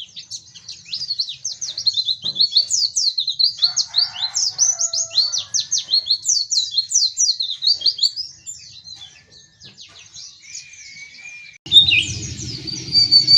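Pleci (white-eye) songbird singing a fast, continuous warble of high, rapid chirping notes, softening after about eight seconds. Near the end the chirping comes back louder, over a low hum.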